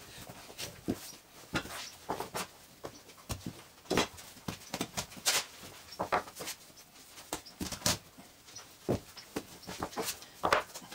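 Dough scraper knocking and scraping on a floured wooden workbench while soft dough is cut, pressed and patted into pieces by hand: irregular short knocks and taps, one or two a second.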